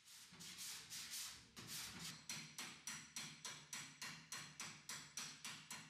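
Hand file rasping back and forth across a repaired sheet-metal fender panel in quick, even strokes, about four a second, faint. Filing the panel smooth to pick up remaining swells after the repair.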